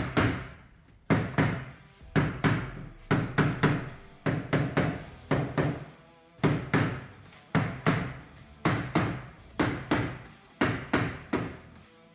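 Repeated sharp knocks, about two a second and often in quick pairs or threes, each ringing briefly as it dies away.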